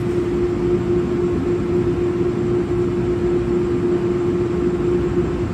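NJ Transit ALP-46 electric locomotive rolling slowly into a station track: a steady low rumble with a constant hum tone from the locomotive.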